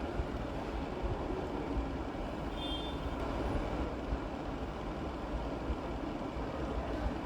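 Steady low rumbling background noise, with a short high tone about two and a half seconds in.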